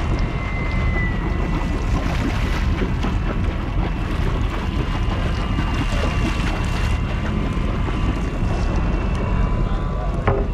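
Boat engine running steadily under way offshore, with a faint steady high whine over the rumble.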